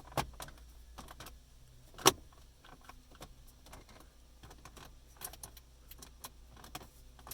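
Plastic dash bezel being pushed onto the radio: its clips snap into place with sharp clicks, the loudest about two seconds in, followed by many small plastic clicks and taps.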